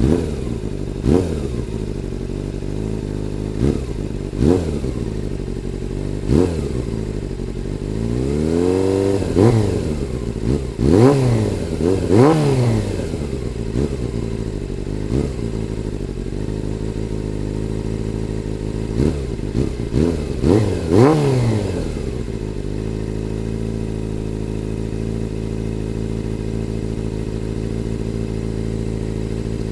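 1995 Honda CB400 Super Four's inline-four engine with a Yoshimura exhaust, just started and idling, with the throttle blipped again and again: short revs that rise and fall back, a few longer revs in the middle. For the last eight seconds or so it settles to a steady idle.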